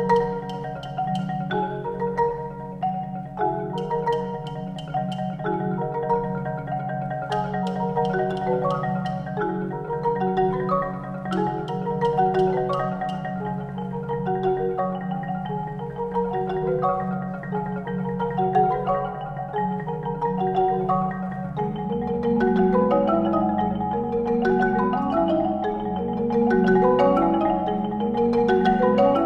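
Marimbas played by a mallet trio: interlocking repeated figures over a sustained low note. About twenty seconds in, the low register starts moving and the texture grows fuller.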